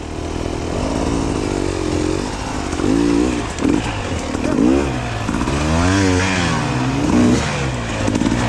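Enduro motorcycle engine revving up and down in short throttle bursts, its pitch rising and falling every second or so over a steady low rumble.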